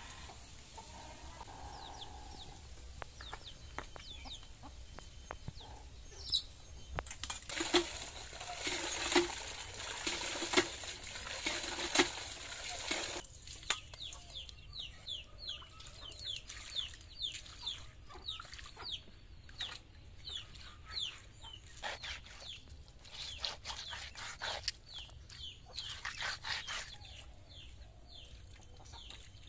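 Water splashing for several seconds as fish are rinsed on a wet concrete slab, then chickens clucking with a long run of short, falling chirps.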